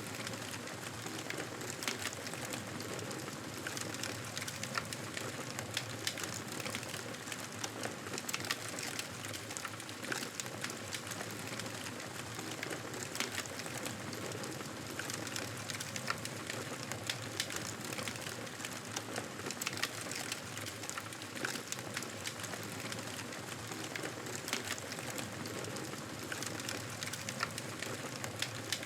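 Wood fire crackling in a fireplace: a steady hiss with many small, irregular pops and snaps throughout.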